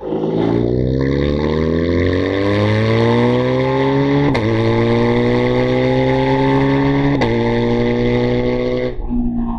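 BMW GS boxer-twin motorcycle engine accelerating on a track, pitch rising through two upshifts about four and seven seconds in, with the throttle closed near the end; wind rush behind the engine note.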